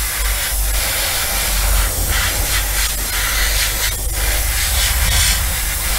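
Airbrush spraying with a steady hiss of air, with a short break about four seconds in. It is sealing weathering powder onto the inside of a model wagon's frame and its axles.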